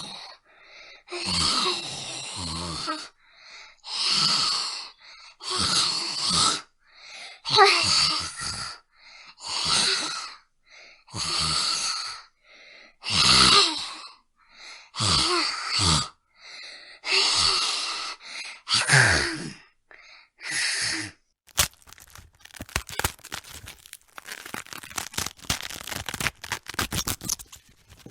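Zombie vocal effects: about a dozen separate raspy groans, growls and gasps from a human voice, each about a second long with short pauses between. About 21 seconds in they give way to a dense run of rapid wet crackling and clicking, a flesh-eating, tearing-meat effect.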